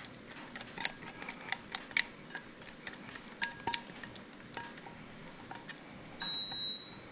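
Silicone spatula scraping thick mayonnaise dressing out of a small stainless steel bowl, with light taps and clinks of metal on metal that ring briefly. Near the end a high steady beep sounds, breaking off and starting again.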